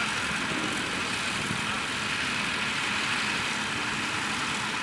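Tractor engine running steadily under a constant hiss.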